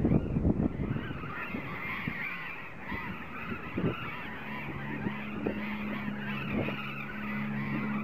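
A colony of burrowing parrots calling, many harsh calls overlapping into a dense chatter, with wind on the microphone in the first second.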